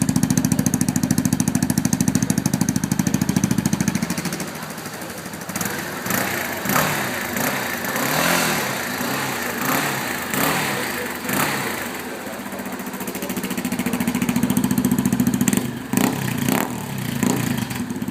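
Yamaha Ténéré 250's single-cylinder four-stroke engine running through a Roncar 2Way exhaust tip. A loud, evenly pulsing low idle drops to a quieter, thinner note about four seconds in while the engine is revved up and down several times. Near the end the loud pulsing idle comes back with a few short blips of throttle, as the tip's handlebar-controlled valve switches the exhaust note between its loud and quiet settings.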